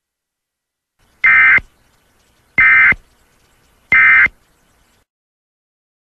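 Emergency Alert System end-of-message (EOM) SAME data bursts: three short, identical bursts of the two-tone digital signal about a second and a third apart, sent at the close of an alert.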